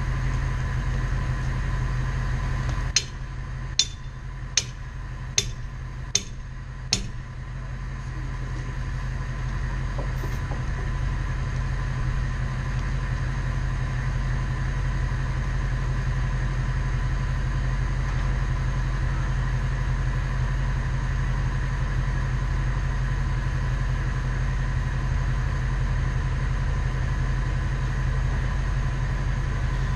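Bucket truck engine running steadily. About three seconds in it drops quieter, six sharp clicks come roughly three-quarters of a second apart, and then the engine climbs back up over a few seconds and runs on.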